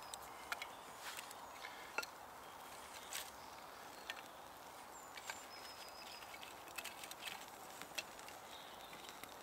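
Thin split kindling sticks clicking and knocking lightly as they are laid one at a time across a small burning wood block, with faint crackling from the fire. Short, high bird calls sound now and then.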